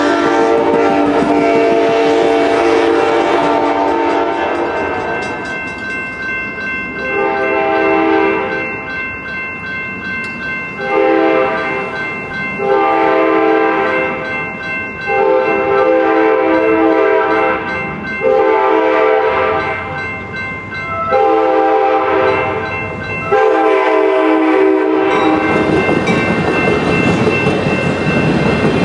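Amtrak train horn holding a long chord, then after a pause sounding a series of about eight blasts as the train nears a grade crossing, over the steady ringing of the crossing bell. Near the end the blasts give way to the rumble and wheel noise of the bilevel passenger cars rolling through the crossing.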